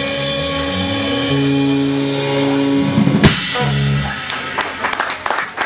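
Live rock band finishing a song: electric guitar and drum kit over sustained chords, a loud drum hit about three seconds in, and the band stopping on a final chord about a second later. Scattered clapping starts near the end.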